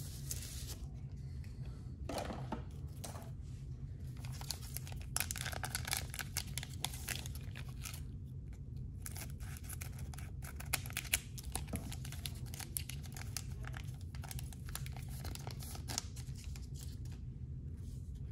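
Scissors snipping open a foil trading-card pack, the foil wrapper crinkling and crackling in bursts as it is handled and the cards are pulled out.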